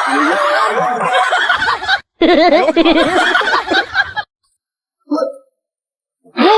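Loud laughter in two stretches, broken by a brief gap about two seconds in and stopping suddenly about four seconds in; then silence apart from one short sound about five seconds in.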